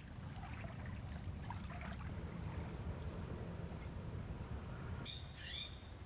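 Birds calling: faint chirps in the first couple of seconds, then a brief burst of sharp, sweeping calls about five seconds in, over a low steady rumble.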